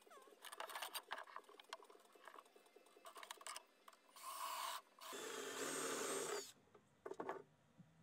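Light clicks and taps of a thin galvanized sheet-metal cover being handled and fitted on a wooden workbench. About five seconds in, a steady rushing noise runs for roughly a second and a half.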